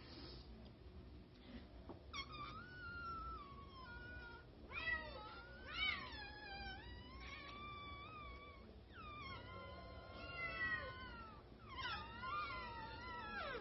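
A person imitating a kitten's meows with their mouth: a string of drawn-out mews that slide up and down in pitch, starting about two seconds in.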